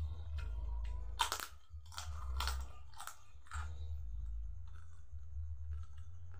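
Crisp cracker (kerupuk) being bitten and chewed with the mouth open, a run of loud crunches between about one and four seconds in, then softer chewing. A steady low hum runs underneath.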